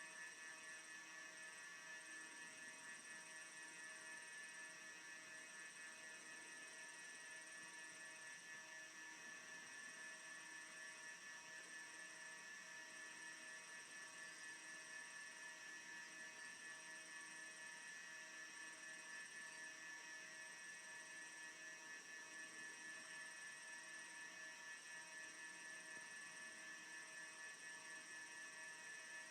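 Near silence apart from a faint, steady electrical hum and whine: several fixed tones held unchanged, with no other sound.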